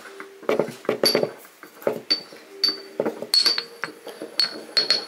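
Ceramic pestle clinking and scraping against a small ceramic mortar in quick, irregular strokes, stirring powdered incense ingredients together.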